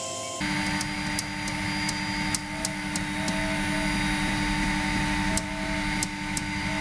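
Robo R2 3D printer running, a steady motor hum with scattered sharp ticks, as its Z-axis stepper motors raise the print bed toward the nozzle during the Z-offset calibration.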